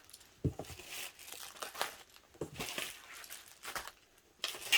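Packaging crinkling and rustling in irregular short bursts as individually wrapped photocards are handled, with the loudest rustle near the end.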